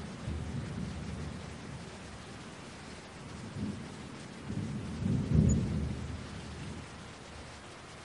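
Steady rain hiss with a low rumble of thunder underneath, swelling to its loudest about five seconds in and dying away a couple of seconds later.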